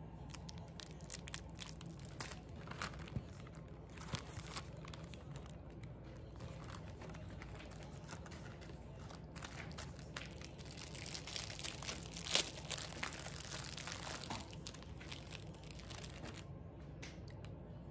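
Clear plastic snack-cake wrapper crinkling and crackling as it is handled and opened, busiest and loudest a little past the middle.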